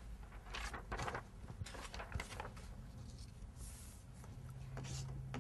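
Quiet rustling and light taps of a sheet of paper being handled and pressed flat against a chalkboard.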